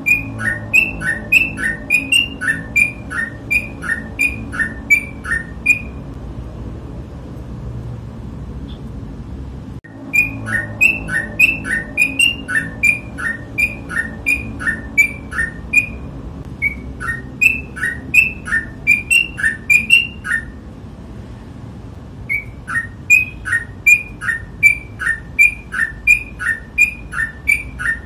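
Sooty-headed bulbul (trucuk) singing in rapid 'ropel' style: a bright note followed by a falling one, repeated about three times a second in bouts of several seconds, broken by pauses of a few seconds. A faint steady hum lies underneath.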